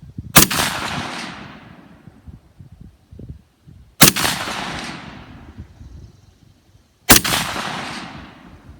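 Three rifle shots from a Smith & Wesson M&P 15 AR-15-type rifle fired about three seconds apart, each a sharp crack followed by a rolling echo that dies away over a second or so: slow, aimed shots in a rapid-fire prone string.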